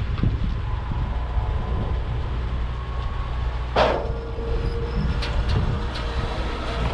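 A vehicle running with a steady low rumble. About four seconds in there is a sharp knock, followed by a steady tone, and a few short clicks come near the end.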